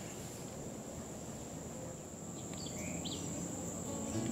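Natural outdoor ambience: a steady, high-pitched insect drone over faint background noise, with a couple of short bird chirps about three seconds in.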